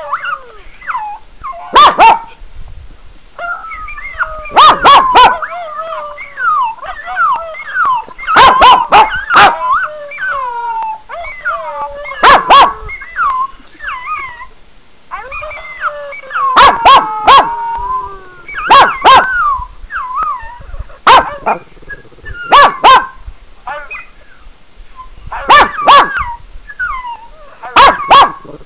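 A Pekingese barking sharply and loudly in short bursts of one to three barks every few seconds, over steady high, wavering dog whining and howling.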